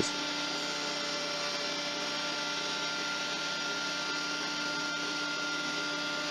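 Planer thicknesser running on its jointer setting, a steady hum with several fixed tones.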